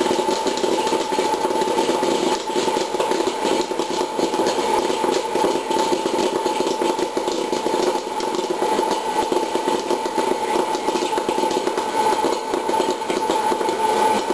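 Hot-air popcorn popper running: its fan blows steadily with a constant whine, while kernels pop rapidly and the popped corn is blown out into a metal bowl.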